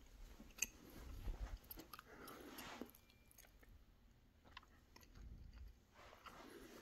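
Faint room tone with scattered small clicks and a few soft low thumps: footsteps and handling noise from someone walking with a hand-held camera.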